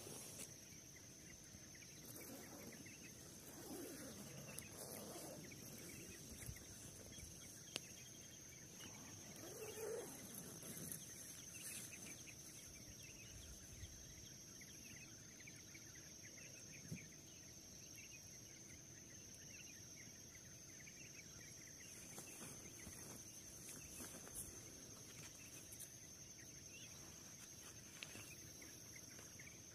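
Faint early-morning outdoor ambience: distant roosters crowing and birds calling a few times, over a steady high-pitched whine.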